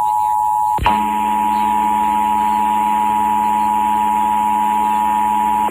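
Emergency Alert System two-tone attention signal: two steady tones near 853 and 960 Hz sounded together over FM radio. A sharp click and a momentary break come about a second in, after which a low hum runs underneath. The tone stops abruptly at the very end.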